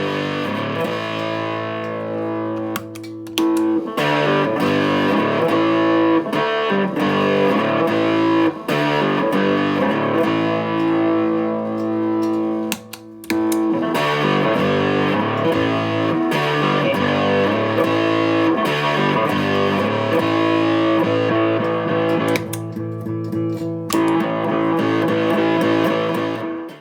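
Electric guitar played through an Astrotone-style silicon fuzz pedal built on 2N3566 silicon transistors, giving a thick, distorted fuzz tone. Sustained chords ring out with brief breaks about 3 and 13 seconds in, and the sound cuts off abruptly at the end.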